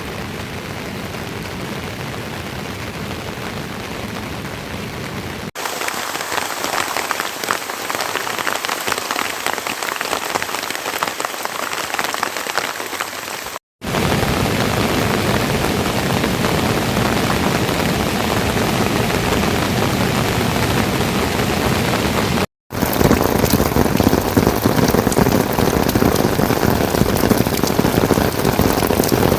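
Heavy rain falling steadily, a dense even hiss. The sound changes abruptly about five seconds in and drops out briefly twice, where separate takes are spliced together.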